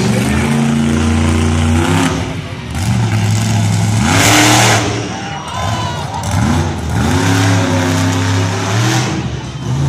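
Monster truck engine running loud and revving repeatedly: it holds a steady drone, eases off, then climbs in pitch on throttle stabs several times. A brief loud rush of noise comes about four seconds in.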